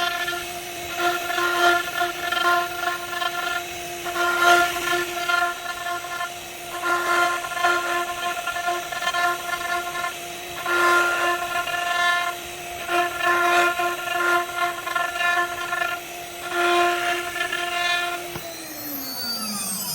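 High-speed CNC router spindle running with a steady high whine, broken into stretches of louder and quieter cutting noise as the tool works the material. Near the end the spindle winds down, its whine falling in pitch.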